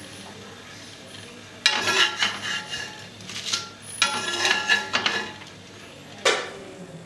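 Metal spatula scraping across an iron dosa tawa to loosen and lift a dosa. It comes in two stretches of scraping starting about two seconds in, then a single sharp clank near the end.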